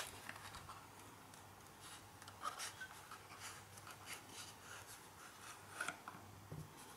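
Faint rustling and scraping of a cardboard card box and a stack of trading cards being slid out of it, with scattered short scratches.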